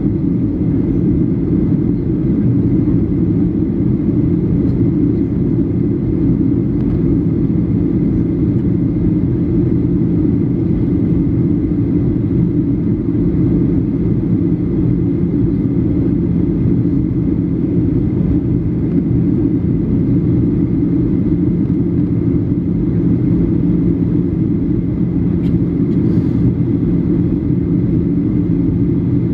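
Steady cabin noise inside a Boeing 737 in flight: an even rumble of engines and airflow with a low steady hum, unchanging throughout.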